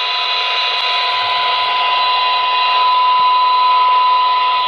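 Vintage walkie-talkie's loudspeaker playing a steady test tone with hiss behind it, as the set receives a tone-modulated test signal from a tinySA signal generator. The sound cuts off suddenly at the very end.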